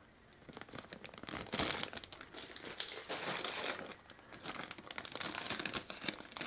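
Plastic bags of model-kit sprues crinkling and rustling as they are handled, in irregular bursts starting about half a second in.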